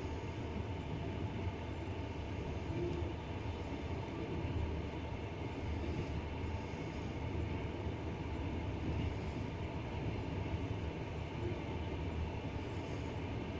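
Double-decker passenger train hauled by an EP20 electric locomotive, running along the rails with steady wheel-on-rail rumble.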